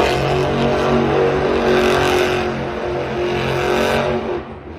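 Added vehicle sound effect: an engine running steadily at a fairly even pitch, fading out a little after four seconds in.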